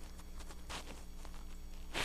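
Three or so brief soft scuffing swishes, like handling on carpet, over a steady low electrical hum.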